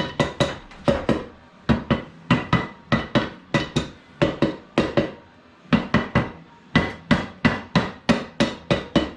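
Rapid hammer blows on an ATV engine's case halves, tapping them together so they seat over the gasket. The blows come in quick runs of about three to four a second, with short pauses between runs.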